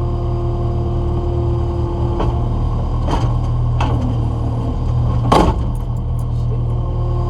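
Skid steer engine running steadily while the bucket controls are worked, with a few sharp clanks of metal; the loudest clank comes about five seconds in.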